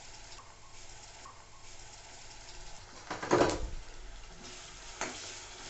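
Chopped onions frying softly in oil in a steel kadai, with a metal slotted spoon scraping and clattering against the pan about three seconds in as ginger-garlic paste is stirred in. A single light click near the end.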